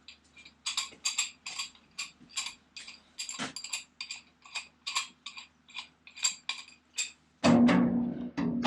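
Hammer tapping sheet steel in a steady run of sharp, ringing blows, about three a second, shaping a panel. Near the end a louder, continuous buzzing noise takes over.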